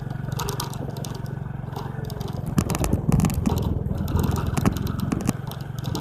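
Bicycle riding over a rough trail: the bike rattles and the tyres crunch over loose ground, thickest through the middle, over a steady low rumble.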